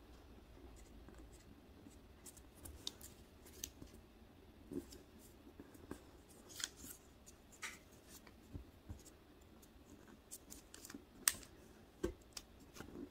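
Red origami paper being creased and folded by fingers: faint, scattered crackles and taps of paper, with a few sharper crackles toward the end.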